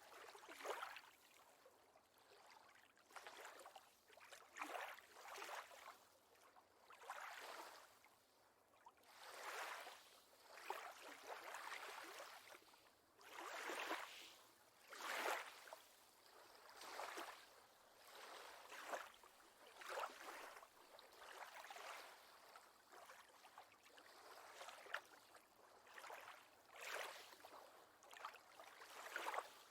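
Faint lake water lapping in soft, repeated swells, one about every one and a half to two seconds.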